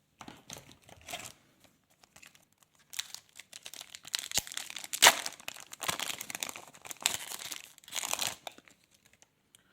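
A 2025 NRL Traders retail trading card pack being torn open, its wrapper crinkling in a run of irregular crackles and rips, loudest about five seconds in.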